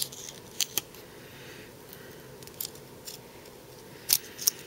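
Scattered crinkles and snaps of a paper wrapper being pulled off a disposable lens-cleaner tip, with a close pair of sharper snaps near the end.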